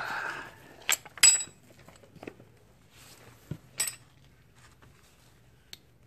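Sharp metallic clinks and taps of a steel hex key against the bolts and aluminium housing of a car air-conditioning compressor, as the key is set on the housing bolts to undo them. The loudest ringing clink comes just over a second in, and another comes near four seconds.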